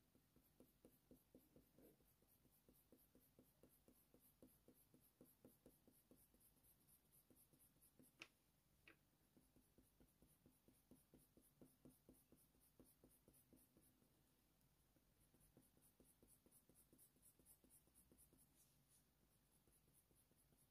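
Faint scratching of a Faber-Castell Polychromos colour pencil on hot-press watercolour paper, laid down in short repeated strokes about two or three a second, with a brief pause a little past the middle. Two small sharp ticks come about eight seconds in.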